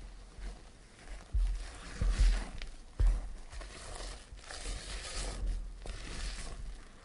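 Silicone spatula folding almond flour and powdered sugar into meringue in a glass bowl: irregular soft scraping and squishing strokes against the glass, with a few dull bumps, the loudest about one and a half, two and three seconds in.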